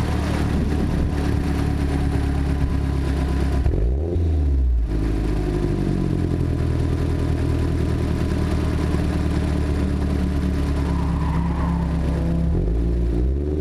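Car engine idling close up, heard from a grille-mounted camera, briefly revving up and settling back about four seconds in and rising again near the end.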